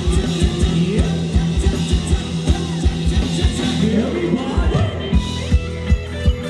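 Live band playing Thai ramwong dance music over loudspeakers: a steady drum beat and bass line, with a voice singing.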